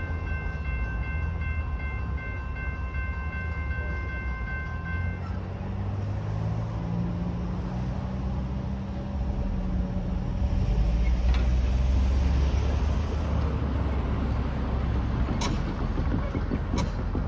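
Railroad crossing electronic bells (General Signals Type 2 E-bells) ringing, cutting off about five seconds in as the crossing clears and the gates start to rise. After that comes a low engine rumble of road vehicles pulling away across the tracks, loudest about ten to thirteen seconds in.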